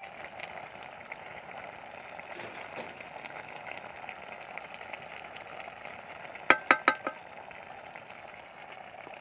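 Chicken pieces sizzling in hot oil in a metal pot, with a steady frying crackle. About two-thirds of the way through, four quick, sharp metallic clinks ring out as the steel spoon knocks against the pot.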